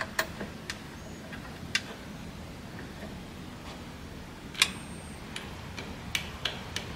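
A handful of sharp, irregular clicks and taps, about eight in all and a little more frequent near the end, over a faint low hum.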